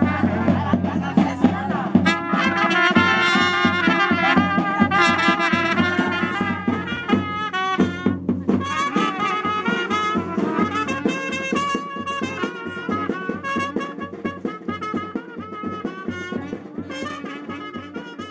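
Hira gasy band music: trumpets and other brass carrying the tune over a regular beat, slowly fading toward the end.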